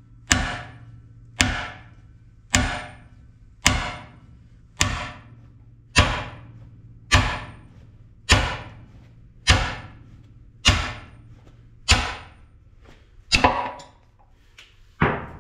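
Steady hammer blows, about one a second, each with a short metallic ring, driving an old cam bearing out of a CAT D4D engine block. The bearing is moving in its bore after being stuck. Near the end two blows land close together.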